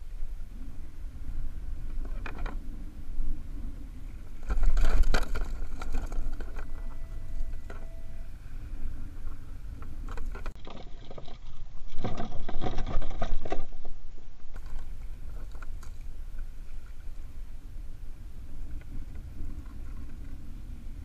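Knocking and rattling against the hollow plastic deck of a sit-on-top kayak as a small kingfish is held down and unhooked, in two louder bursts about five and twelve seconds in, over a steady low rumble of wind and water.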